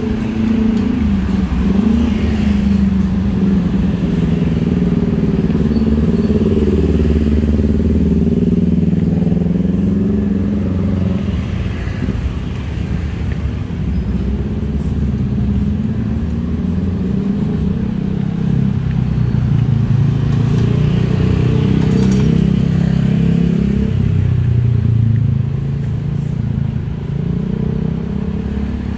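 Street traffic: motor engines running close by, their pitch rising and falling throughout.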